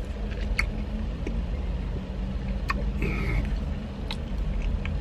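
Steady low hum of an idling engine, heard from inside a van's cab, with a few faint clicks and chewing sounds.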